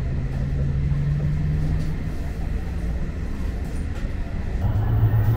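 Shinkansen bullet train pulling out of a station, heard from inside the car: a steady low hum and rumble of the train running, getting a little louder near the end as it gathers speed.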